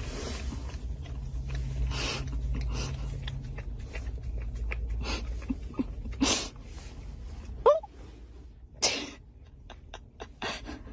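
A puppy with a paper cup stuck over its head, making short sharp sniffing or sneezing noises into the cup, with a low steady hum inside a car. A brief squeak, up and then down in pitch, comes about two-thirds through, and the hum fades soon after.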